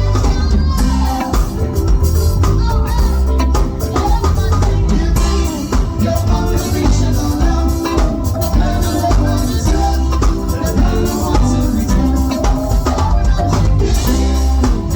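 Band music with drums, bass, keyboards and percussion at a steady beat, with some singing.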